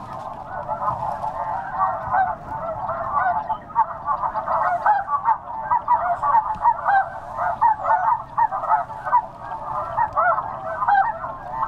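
Snow geese calling: a continuous din of many short, overlapping honks, as from a large flock.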